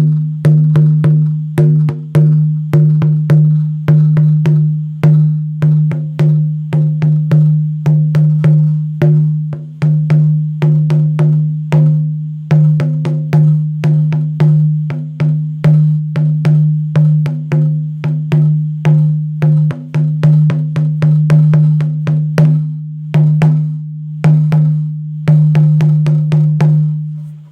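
Native American hide drum beaten in a steady rhythm of about three strokes a second. Each stroke rings on with a deep, sustained hum, and the drumming stops just before the end.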